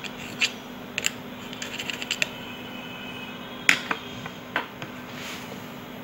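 Sharp clicks and scrapes of a screwdriver tip poking at the cell vents of a 12-volt lead-acid battery. They come in irregular bunches, the loudest just under four seconds in, over a steady low hum.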